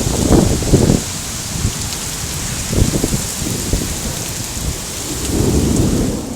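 Heavy rain falling steadily as an even hiss, with low rumbles surging in the first second, about three seconds in, and again near the end.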